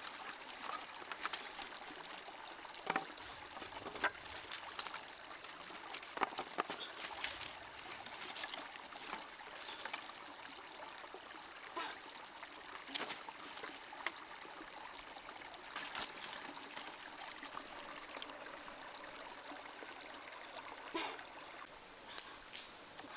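A small stream trickling steadily over rocks, with scattered light clicks and knocks of dry wooden sticks being handled and laid for a fire.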